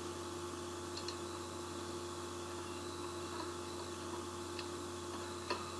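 Background noise of a home voice recording with no voice on it: a steady hiss with a low hum and a steady mid-pitched tone under it, and a few faint ticks. This is the noise floor that is about to be sampled as a noise profile and removed.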